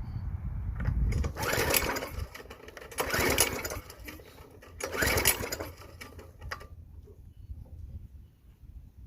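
Bolens front-tine rototiller's small engine being pull-started three times, each recoil pull cranking it for about a second, without the engine catching and running.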